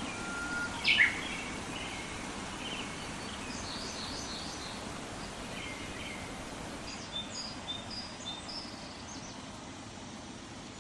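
Small birds chirping and calling over a steady low background rush. About a second in comes the loudest call, a quick downward-sweeping note, and near the end a run of short, high chirps follows.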